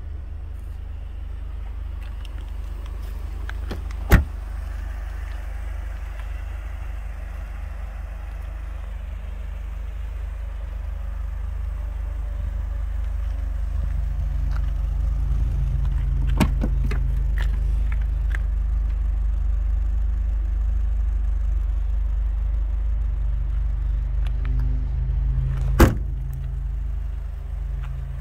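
Mercedes-Benz 230E's 2.3-litre four-cylinder petrol engine idling steadily, its exhaust note growing louder about halfway through. Two sharp knocks, one about four seconds in and one near the end.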